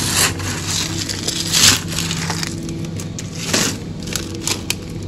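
A plastic bag crinkling and a plastic scoop rustling in several loud bursts as seafood salad is scooped into the bag, over background music.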